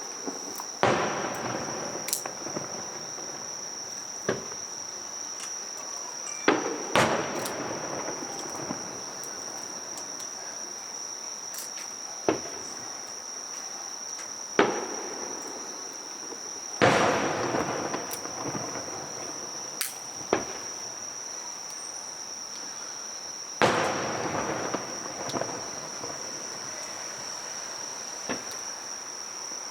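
Fireworks shells bursting at irregular intervals of a few seconds, about a dozen sharp bangs, several followed by a lingering echoing tail. Underneath runs a steady high-pitched insect trill.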